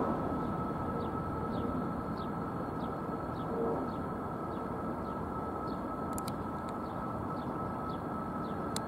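Bombardier CRJ-100ER regional jet flying low on approach. Its two rear-mounted General Electric CF34 turbofans make a steady rushing drone with a high whine, easing off slightly at the start after the loudest pass. A small bird chirps repeatedly over it, about twice a second.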